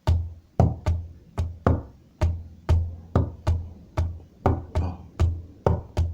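Hand drumming on a wooden table: a steady rhythm of about fifteen strokes, mixing deep closed-hand thumps for the bass with brighter fingertip taps for the high sound.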